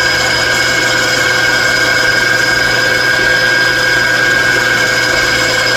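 A metalworking machine tool running steadily, its motor and spindle giving a constant whine with several steady tones over a mechanical hum, while a cut is fed down to depth.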